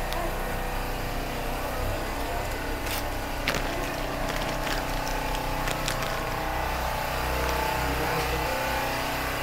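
Generator engine running steadily, a continuous mechanical hum keeping the shop powered through a blackout. A few light clicks sound in the middle.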